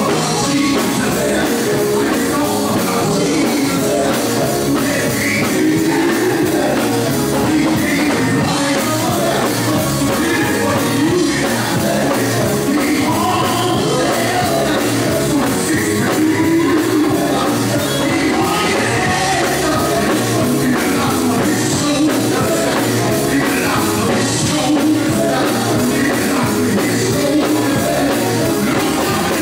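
Loud live gospel music: a full band with singing, played at a steady driving beat with no break.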